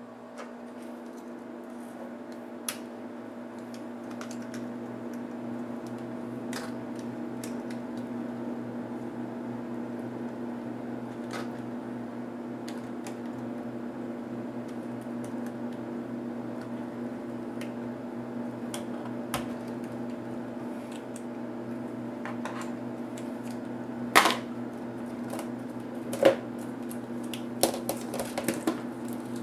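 Small clicks and taps of a screwdriver and metal brackets being worked on a laptop LCD panel's frame, with two louder clacks and a few smaller ones near the end as the panel is handled and lifted. A steady low hum runs under it throughout.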